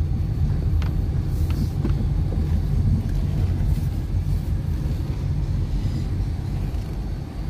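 Steady low rumble of a 2013 Toyota Limo Gen 2 sedan on the move, engine and road noise heard from inside the cabin.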